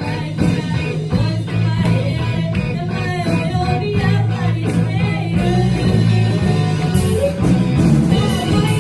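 Live rock band playing, a girl singing over electric guitar, bass and drums, with steady drum beats and a cymbal crash about seven seconds in.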